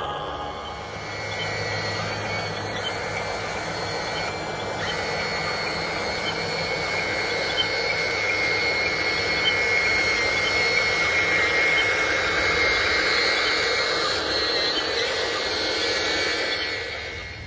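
Amewi RC excavator's electric motors whining steadily as it moves, the pitch stepping up or down a few times. The whine stops shortly before the end.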